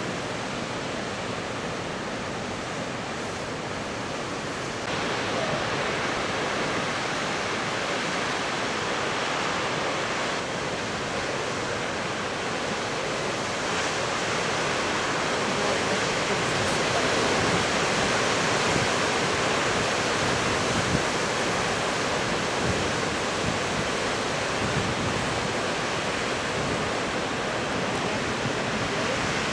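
Heavy storm surf breaking and churning against rocks and shore: a continuous rushing noise of crashing waves that steps louder about five seconds in and again near the middle.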